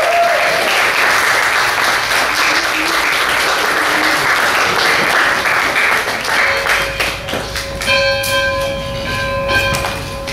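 Wedding guests applauding, with a brief whooping cheer at the start; the clapping fades after about six seconds as a bell starts ringing, struck again with several clear tones near the end.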